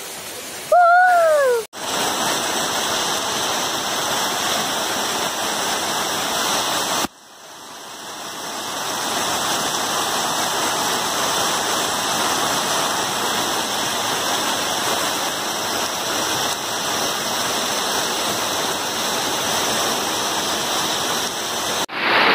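Floodwater rushing in a steady, even stream of noise, across several takes joined with abrupt cuts. About a second in, a brief loud falling tone.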